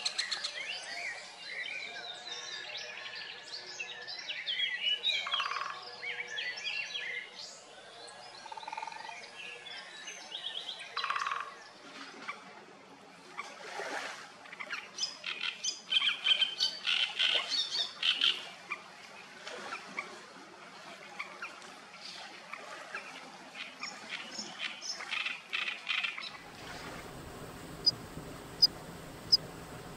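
Wild birds singing and calling, many short chirps and song phrases one after another. In the last few seconds the sound changes to a low, wind-like rumble with a few sharp clicks.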